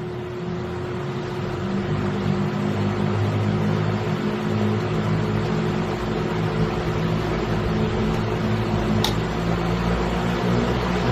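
24-inch industrial fan running, a steady rush of moving air with a low rumbling hum; it grows louder over the first two seconds, then holds. A short click about nine seconds in.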